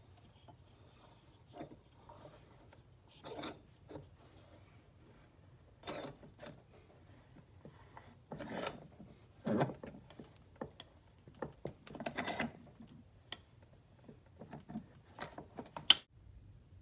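A steel C-clamp being handled and screwed down over a knife's wooden handle scales: scattered clicks, scrapes and knocks of metal against wood and metal, with a sharp click near the end.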